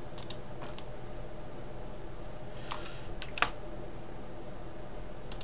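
A few scattered clicks of a computer mouse and keyboard, the sharpest about three and a half seconds in, over a steady low hum.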